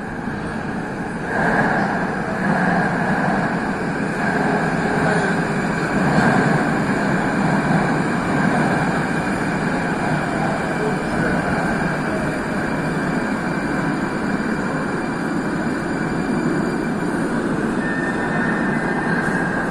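Moscow Metro train running on the track in the station: a steady rumble of wheels and motors that swells about a second and a half in. Near the end a thin high whine joins it as a train comes in.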